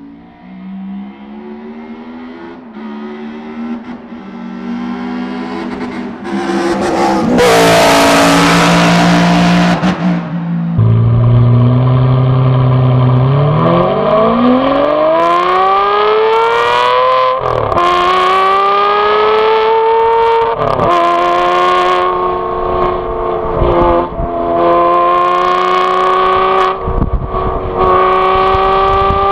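Modified 2014 Aston Martin V12 Vantage S's 6.0-litre V12 heard at the exhaust, building in volume over the first several seconds. A loud rushing noise lasts about three seconds. The engine then rises steadily in pitch under acceleration and holds a high, even note, with brief dips in pitch several times.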